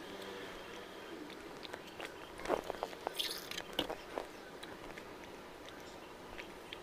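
A person quickly drinking water from a glass, faint gulps and mouth clicks, with a cluster of clicks and a short hiss about three seconds in.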